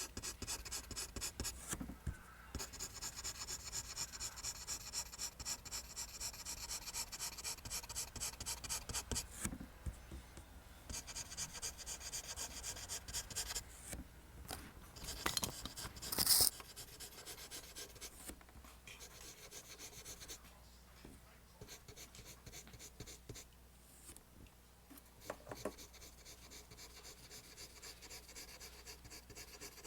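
Pencil drawing lines on paper in rapid, repeated scratching strokes, broken by short pauses. There is a louder scrape near the middle, and the strokes are lighter in the second half.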